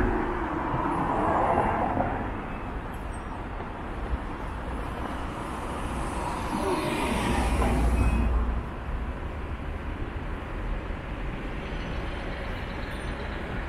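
Road traffic: cars driving past close by, their tyre and engine noise swelling twice, near the start and again past the middle, where it drops off suddenly.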